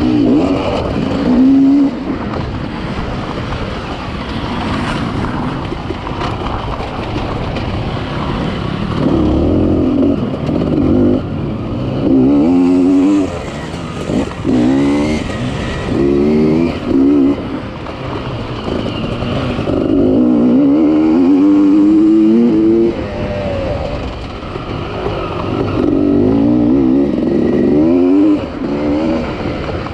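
Off-road enduro motorcycle engines revving hard, their pitch swooping up and down in repeated surges as the throttle is worked on rough ground. Several surges stand out, the longest about two-thirds of the way through.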